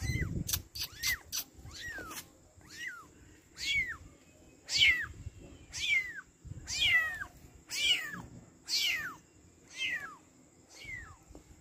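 Small tabby kitten mewing over and over, about once a second. Each cry is a high call that slides downward in pitch. A few sharp clicks come in the first second or so.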